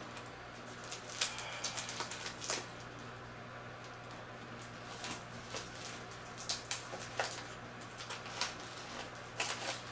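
Intermittent light rustling and small clicks of plastic packaging and parts being handled, over a steady low hum.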